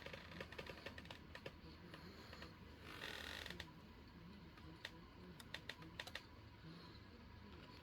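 Near silence with scattered faint sharp clicks and ticks, and a short rustle about three seconds in.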